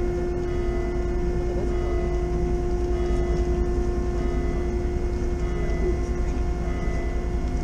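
Car ferry MS Chi-Cheemaun under way, its engines and machinery giving a steady hum over a deep rumble.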